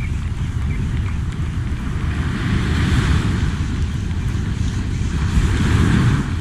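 Wind buffeting the microphone in a steady low rumble, with waves washing up on the beach swelling about three seconds in and again near the end.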